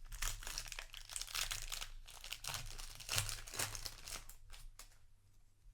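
Foil booster pack wrapper being torn open and crinkled, a dense crackling that dies away near the end.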